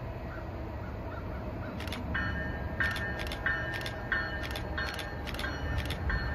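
Railroad warning bell starting to ring about two seconds in, a clear strike with a short ring about three times every two seconds, as a commuter train approaches; under it a low steady rumble.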